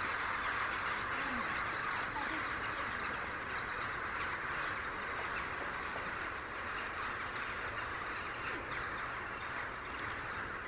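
A huge flock of common starlings in a murmuration, chattering and twittering en masse in a dense, continuous wash that slowly fades as the flock moves off.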